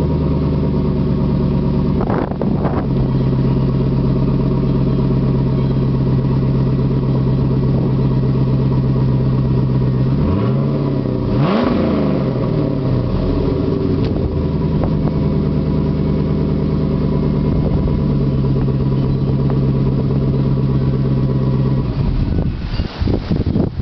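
2000 Pontiac Trans Am WS6's LS1 V8 idling steadily through its exhaust, with one quick blip of the throttle about halfway through, the pitch rising and falling back. Near the end the idle note stops.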